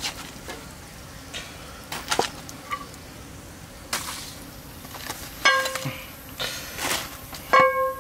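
A rack of raw pork ribs handled and pressed down in a metal frying pan: soft knocks and handling noises, with two short metallic rings from the pan, about two seconds apart in the second half.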